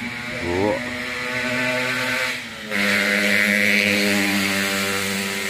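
A small engine running steadily with a constant pitched note. Its pitch briefly rises about half a second in, and after a short dip near the middle it settles on a slightly lower, louder note.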